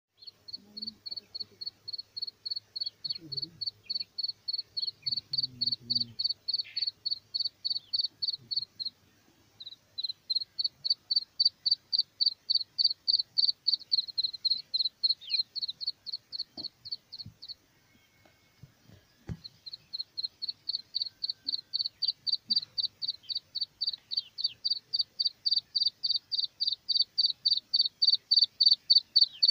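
Black francolin chick peeping: a rapid train of short, high, thin peeps, about five a second, in long runs broken by two short pauses.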